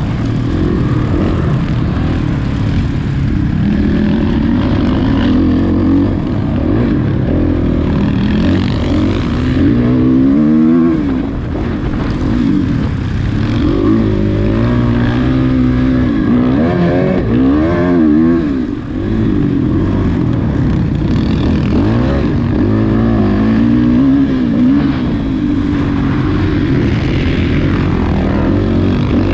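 Off-road racing motorcycle engine heard from on the bike, revving up and dropping back over and over as the rider works the throttle and gears through the course, over a constant heavy rumble.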